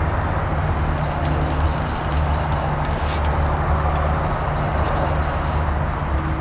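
A steady low mechanical hum with an even rushing noise over it, like a running engine nearby, and a few faint clicks as metal tongs touch the grill grate.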